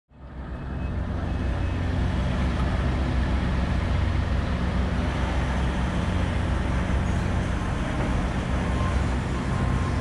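Steady city street noise with a low engine rumble, fading in over the first second.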